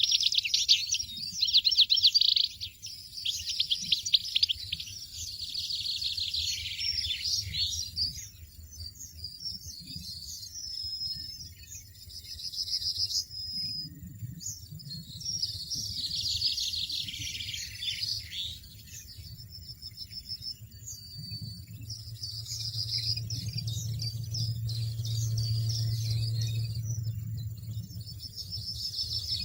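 European goldfinches twittering in bouts of rapid high notes, with a few longer held notes in between. A low rumble runs under the later part.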